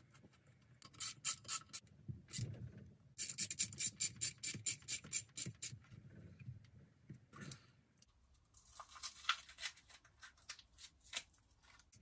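Bolts being done up on the Suzuki DR-Z400 engine's side casing cover: three spells of rapid metallic clicking, each a second or two long, with rubbing and handling in between.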